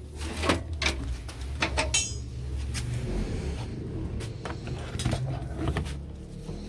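Metal tools and parts being handled, with repeated clattering knocks and clicks over a low steady hum.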